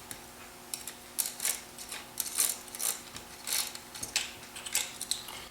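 Screwdriver turning out the trigger guard screws of a Ruger M77 rifle: a run of short, irregular metal scrapes and clicks a few tenths of a second apart.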